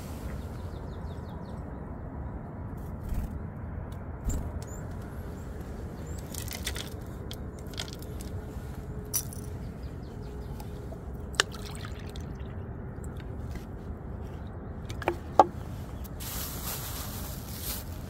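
Handling noises as bird seed and a plastic water bottle are set down among rocks: scattered small clicks and taps and brief rustles, with a few sharper knocks about 11 and 15 seconds in, over a steady low hiss.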